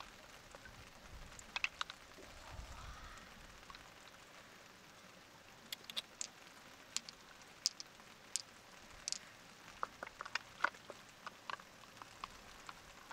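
Scattered sharp clicks and small taps over a faint crackling haze, only a few in the first half and more frequent in the second half.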